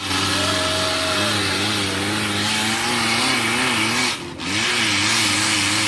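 An off-road 4x4's engine revs under load, its pitch wavering up and down. The sound dips briefly about four seconds in.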